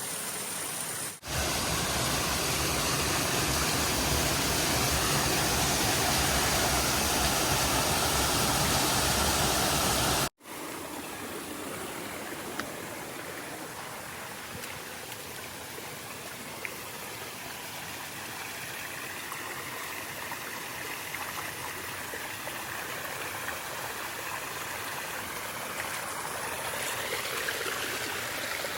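Steady rush of a mountain stream's water. It breaks off sharply twice, and is louder and deeper between about one and ten seconds in, then softer.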